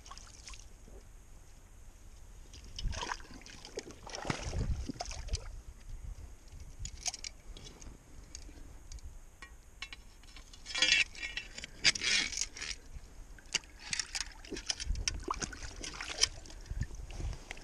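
Shallow muddy water sloshing and splashing, with a metal chain clinking, as a steel beaver trap and its chain and drowner cable are set in the water. The clicks and splashes come irregularly, most thickly about two-thirds of the way through.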